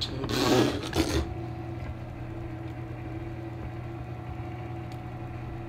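About a second of rushing handling noise as the phone is swung around, then a steady low mechanical hum with a constant drone.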